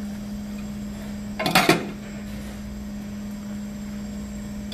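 Steady low hum of kitchen equipment over lit gas burners, with a brief clatter of a metal ladle against the pots about one and a half seconds in as broth is ladled into earthenware bowls of samgyetang.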